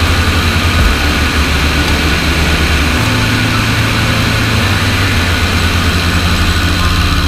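Tiger Moth biplane's piston engine and propeller running in flight, a steady low pulsing beat, heard with heavy wind rush over a wing-strut-mounted camera.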